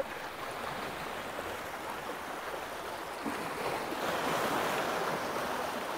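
Black Sea waves washing onto the shore as a steady rush, with one wave swelling louder about halfway through.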